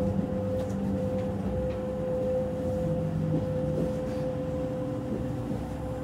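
Running noise inside a Kintetsu 22000 series limited-express car as it comes in to stop at a station: a steady low rumble with a steady whine over it.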